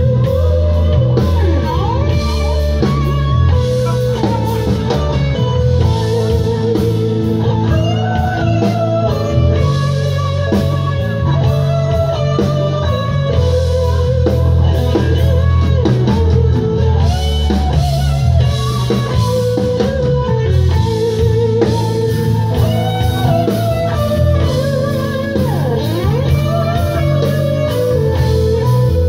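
Live rock band playing an instrumental passage, led by an electric guitar line with bent, wavering notes over a steady bass and drum backing.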